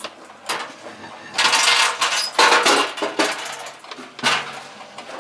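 Metal hand tools clicking and clinking in short, irregular bursts while hood hinge bolts are worked. There are a few sharp metallic knocks, and the densest run of clicks comes a little under halfway through.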